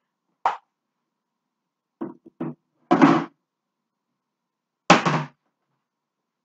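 A string of separate knocks and thuds as kitchen containers and utensils are handled and set down at the counter. There is a light knock, then two softer taps, then two louder thuds about three and five seconds in.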